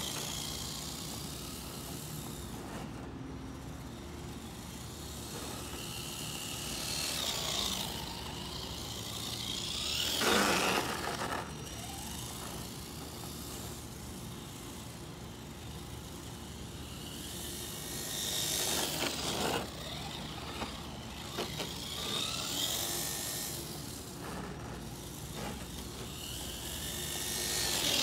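Radio-controlled Axial SCX10.2 / Vanquish VS4-10 hybrid scale crawler with a 3150kv brushless motor, running on 2S, driving over grass: the motor and drivetrain whine rises and falls in pitch with the throttle. The sound grows louder whenever the truck passes close, most strongly about ten, nineteen and twenty-eight seconds in.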